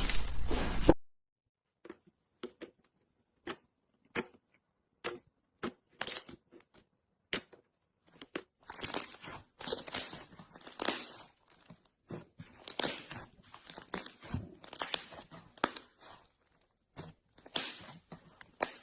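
Slime being handled close up: sparse sticky crackles and snaps at first, which grow into a dense crackling about halfway through. Music cuts off about a second in.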